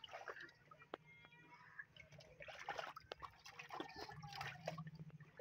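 Faint splashing and trickling of shallow water as hands sweep and scoop through it, with a few small drips and clicks.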